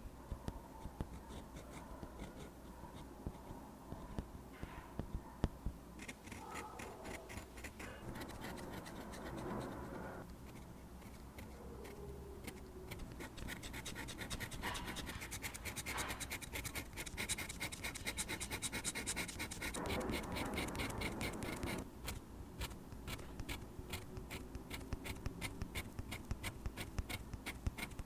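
Pen nib scratching across paper, drawing lines one after another in quick, rapid strokes; quieter for the first few seconds, then steady and dense.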